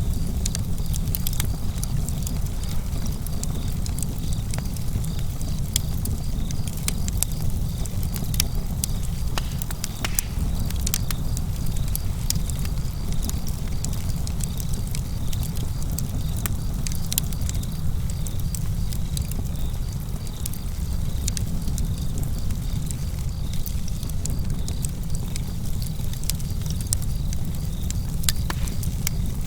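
Fire burning in a fireplace: a steady low rumble of flame, with frequent sharp crackles and pops at irregular moments.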